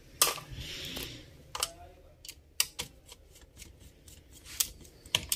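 Screws being driven back into the underside of an HP EliteBook 8470p laptop's plastic case: scattered light clicks and taps of a screwdriver and fingers on plastic, with a short scraping hiss about half a second in.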